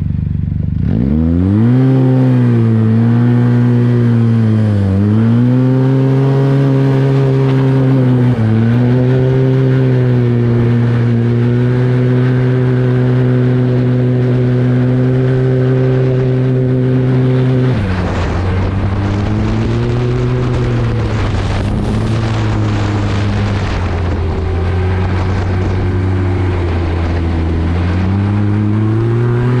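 Arctic Cat 1100 Turbo snowmobile's turbocharged four-stroke triple running under way, heard from the rider's seat. It picks up speed about a second in and holds a steady cruise, with two brief dips in pitch. Past the halfway point it settles to a lower, wavering pitch with more rushing noise, then climbs again near the end.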